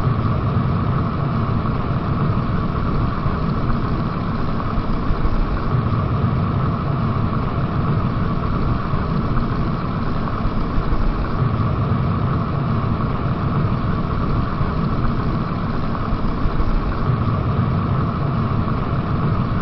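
Kettle heating water: a steady rumbling hiss of water near the boil, with no whistle.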